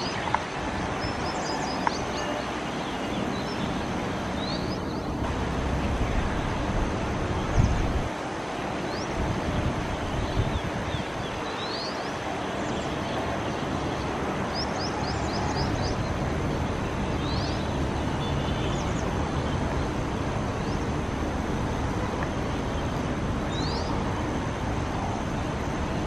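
Steady outdoor background noise like distant traffic, with short high rising bird chirps scattered through it, some in quick runs, and a thin steady high whine.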